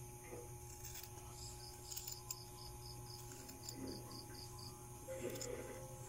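Insect chirping in a quick run of short, high chirps, about four a second, that starts about a second and a half in and stops near the five-second mark, over a steady low hum.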